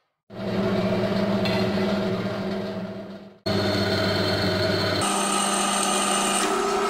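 Bench drill press running with a steady motor hum. Its bit is drilling into a flat metal bar, adding a high-pitched whine over the last couple of seconds.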